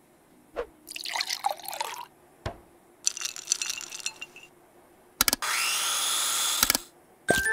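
Cartoon kitchen sound effects for food preparation: a few sharp clicks, squelchy liquid sounds and a sparkly high patch. Then a steady rushing sound about a second and a half long, with a tone rising slightly in pitch.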